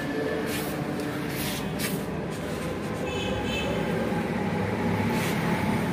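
Steady low background rumble and hiss, with a few faint clicks.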